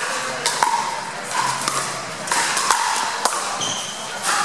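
Pickleball rally: paddles striking the hard plastic ball, giving sharp separate pocks about once or twice a second, over a murmur of voices in a large hall.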